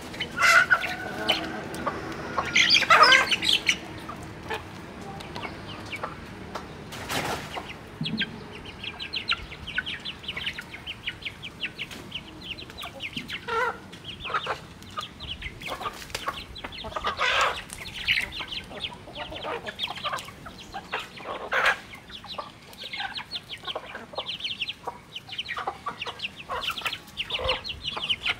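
Chickens clucking as they feed, with a few louder sudden sounds and, from about a third of the way in, a dense run of quick short ticks.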